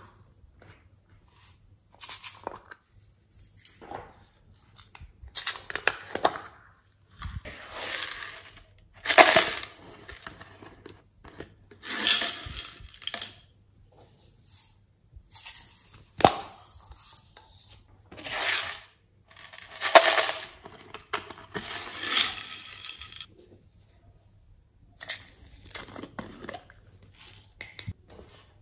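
Sequins and glitter shaken out of small containers onto slime in a glass tray: repeated rattling, pattering bursts of about a second each, with short pauses between.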